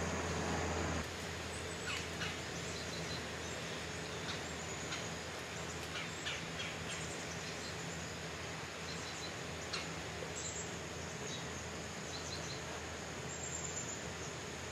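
Quiet woodland background with a steady low engine hum, a tractor working a nearby field, that drops abruptly about a second in and carries on faintly, with scattered faint ticks and rustles.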